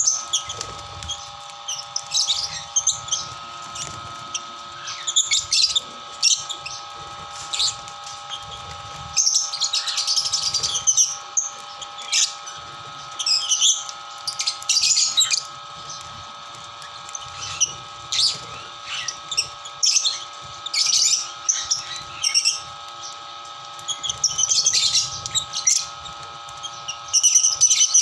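Hungry lovebirds calling in irregular bursts of shrill chirps and squawks, over a faint steady hum.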